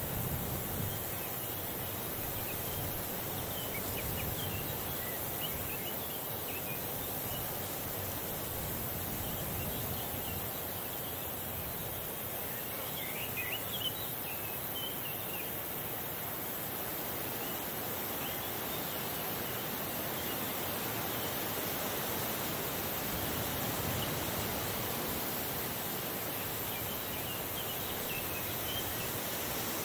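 Summer meadow ambience: a light breeze gives a steady, even hiss, with faint high chirps scattered through it, a small cluster of them about halfway.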